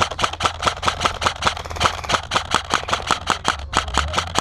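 Airsoft guns firing in rapid automatic strings during a firefight: a steady rattle of sharp clicking shots, about six or seven a second.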